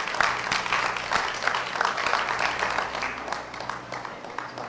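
Audience applauding, the clapping thinning and dying away.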